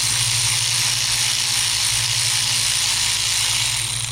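A steady, loud hiss that cuts off near the end, over a steady low hum.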